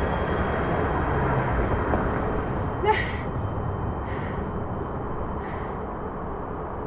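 A woman breathing heavily in short hissing breaths about every second and a half, one sharp gasp about three seconds in, over a steady low rumble.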